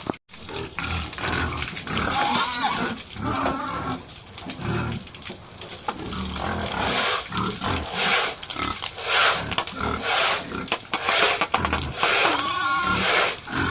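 Several pigs grunting and squealing over one another in irregular, overlapping calls, with one clear drawn-out squeal near the end.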